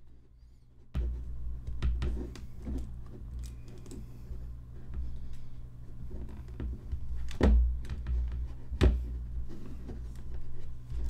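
A PinePhone being pressed and snapped into its plastic keyboard case: hands rubbing and fumbling with small clicks and knocks, then two sharp snaps about seven and a half and nine seconds in as the case's clips catch the phone.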